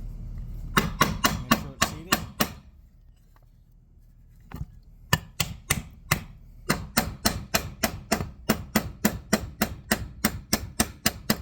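Nylon hammer tapping on the end of a Stihl 034 chainsaw crankshaft, driving the frozen crank and main bearing into the hot crankcase half. It gives a quick run of about eight light taps, a pause with a few single taps, then a steady tapping of about three a second until the bearing seats.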